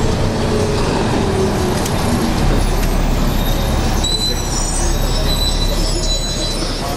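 A vehicle running with a steady low rumble. Thin high squeals come and go from about four seconds in.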